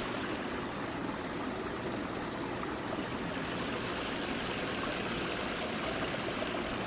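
Water running steadily through a pond filtration system fed by an external pump, an even rushing and trickling.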